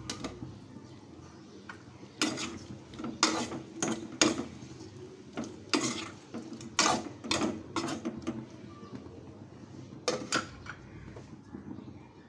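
Steel spoon clinking and scraping against the inside of an aluminium pot while stirring sliced radish, in irregular clusters of sharp knocks. The aluminium lid is lifted off at the start and knocked back onto the pot about ten seconds in.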